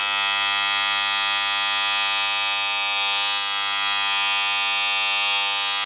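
Andis electric hair clipper running with a steady, loud buzz that cuts off abruptly.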